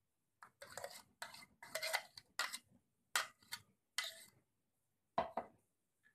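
A metal spoon scraping and clinking inside a stainless steel mixer-grinder jar as the last of the tomato paste is scraped out. It comes as a string of short scrapes, about nine in five seconds.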